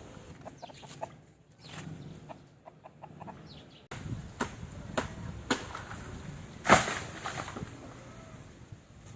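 Chickens clucking in short calls, with a series of sharp knocks in the second half, the loudest about two-thirds of the way through.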